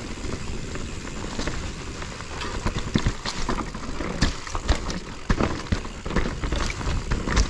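Mountain bike rolling over rocky singletrack: tyres crunching over rock, with frequent short clicks and knocks of the chain and frame rattling over the bumps.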